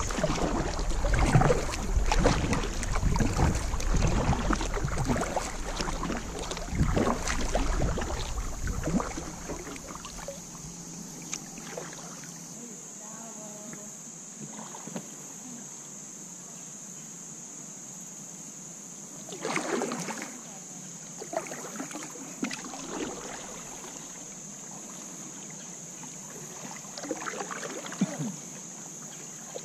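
Kayak paddle strokes splashing and water sloshing against the hull, with wind rumbling on the microphone, loud for the first nine seconds or so. Then it goes quieter, with a few more paddle splashes about twenty seconds in and again near the end, over a steady high hiss.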